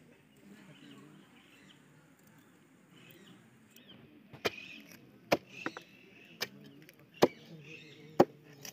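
A cleaver chopping raw chicken on a wooden log used as a chopping block. The first few seconds are quiet, then about six sharp chops land roughly a second apart.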